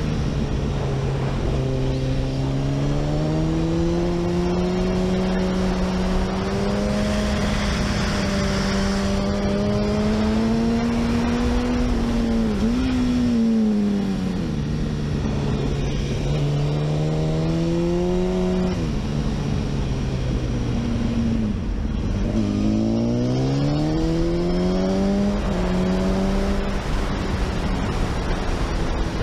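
Honda CBR sportbike's inline-four engine heard from the bike while riding, over steady wind and road noise. Its pitch climbs slowly under throttle, drops suddenly about twelve seconds in and again about nineteen seconds in, then rises and falls again as the rider works the throttle.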